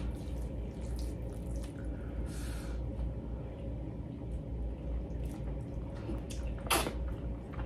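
Soft, sticky, wet squishing of pounded yam being pinched off and pressed into egusi soup with the fingers, over a low steady hum. Near the end comes one brief, louder wet mouth sound as the bite goes in.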